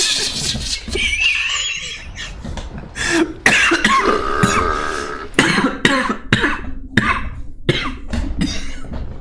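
A man burping very loudly, mixed with a dozen or so short, hard bursts of coughing laughter.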